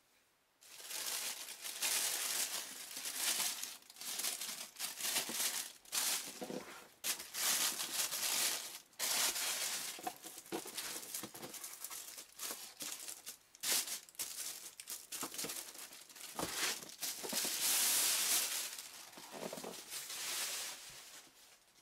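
Thin plastic wrapping bag crinkling and rustling in irregular bursts as a boxed figure is handled and slid out of it.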